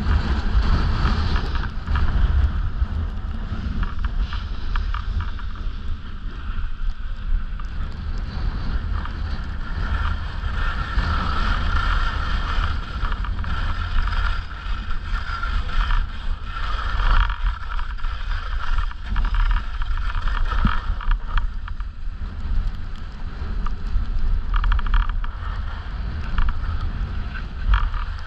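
Wind buffeting the microphone of a downhill skier's action camera, a heavy fluttering rumble, with skis hissing and scraping over groomed snow that swells and fades as the skier turns.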